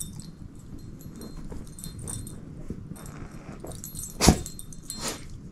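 Shepherd-mix dog chewing and tugging at a plush toy, a steady rustling with small clicks and light jingling of collar tags. One sharp click about four seconds in is the loudest sound.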